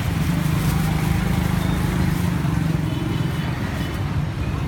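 A small engine, such as a motorbike's, running with a steady low hum that is strongest for the first few seconds and then eases off, over general street noise.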